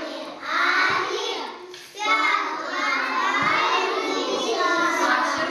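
A group of young children calling out together, many voices at once, briefly about half a second in and then continuously from about two seconds.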